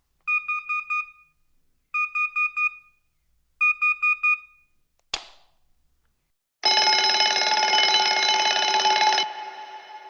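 Emergency Alert System-style alarm: three short bursts of rapid beeping header tones, a click, then the loud, harsh steady attention tone starting about two-thirds in, which cuts off near the end and trails away.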